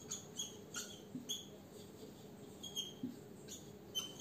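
Dry-erase marker squeaking and scratching on a whiteboard while words are written: a faint string of short, high squeaks at irregular intervals, several a second at times.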